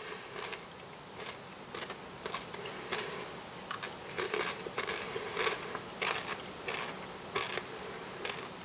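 Close-up chewing of Reese's Pieces, the candy shells crunching in irregular crisp crackles, several a second.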